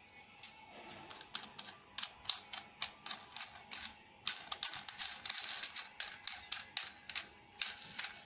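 Plastic locknut spun by hand along the threaded plastic shank of a stainless steel soap dispenser pump: a quick irregular run of light clicks and rattles, with a couple of longer scraping stretches.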